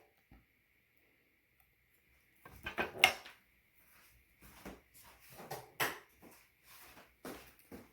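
Small hard parts, 3D-printed plastic pieces and washers, being handled and set against each other. There is a cluster of clicks and knocks about two and a half seconds in, then scattered lighter clicks, over a faint steady high whine.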